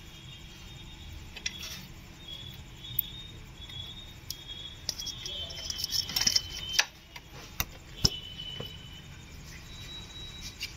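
Hand tools clicking and clinking on engine metal as parts are unbolted, in scattered sharp knocks with a busier cluster past the middle.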